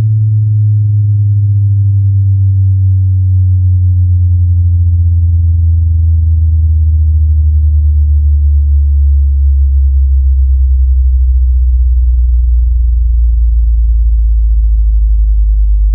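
Loud, low bass sine test tone for checking speakers and headphones, sliding slowly and steadily down in pitch, with faint higher overtones following it down.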